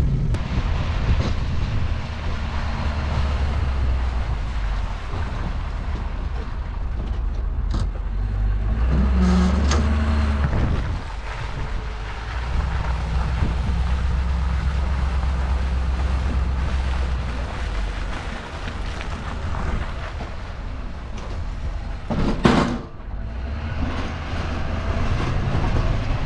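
Ford F-350 pickup with a snow plow, its engine running and changing pitch as it drives back and forth plowing. About 22 seconds in, a short loud thump stands out.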